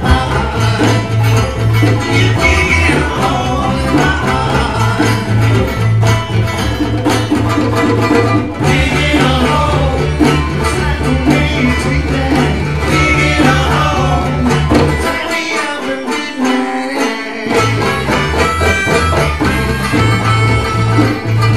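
Live acoustic band playing a bluesy rock song: banjo, acoustic guitar, harmonicas and hand drum with a man singing over a low bass line. The bass drops out briefly about two-thirds of the way through, then comes back in.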